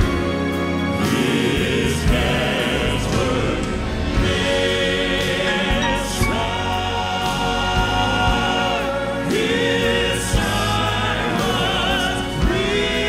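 Male southern gospel quartet singing live in close harmony, holding long notes with vibrato.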